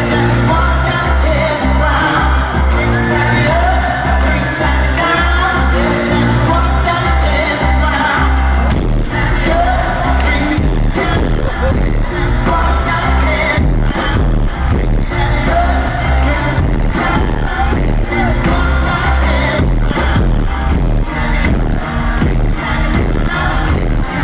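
Live electronic pop music played loud at a concert: a steady heavy bass beat about twice a second under sung vocals, with the coarse, overdriven sound of a recording made from the audience.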